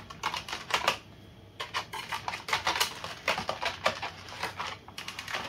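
Reciprocating saw blades and their packaging being handled: light clicks and clinks in short, irregular clusters.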